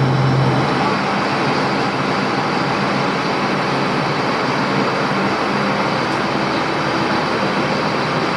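Steady vehicle running noise, with a low engine hum that drops away about a second in.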